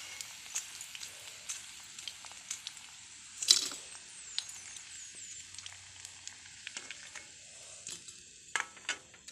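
Cornflour-coated cauliflower florets deep-frying in hot oil: a steady sizzle with scattered crackling pops, one louder pop about three and a half seconds in.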